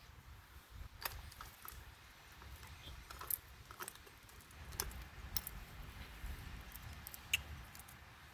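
Chainsaw bar and chain being handled: irregular light metallic clicks and rattles of the chain links.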